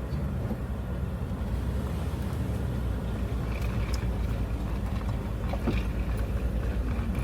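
A vehicle driving, its engine and road noise a steady low rumble.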